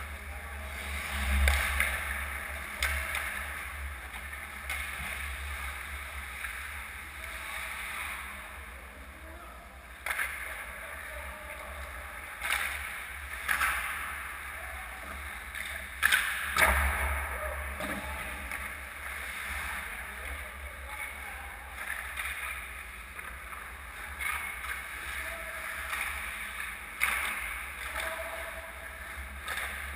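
Ice hockey game in an indoor rink: a steady hiss of skate blades scraping and carving the ice, broken by sharp clacks and thuds of sticks and puck. A loud one comes near the start and several come close together about halfway through.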